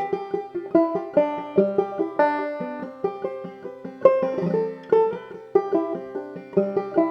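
Clawhammer banjo playing an old-time tune: plucked notes in a quick, steady rhythm, ringing over a sustained low note.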